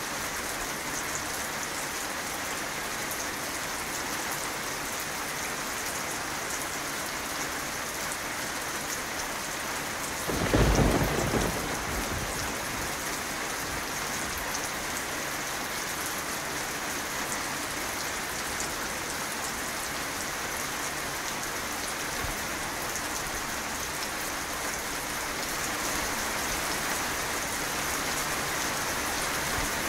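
Steady rain falling, with a sudden thunderclap about a third of the way through that dies away within about two seconds.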